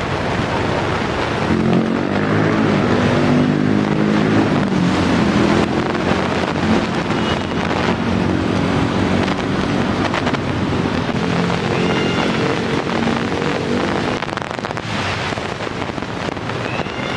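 Busy road traffic noise with wind buffeting the microphone, a vehicle engine droning through most of it and dropping away a few seconds before the end.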